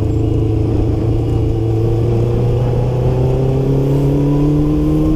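Kawasaki GPX600's inline-four engine pulling the motorcycle along in second gear, its pitch climbing slowly and steadily as the revs build.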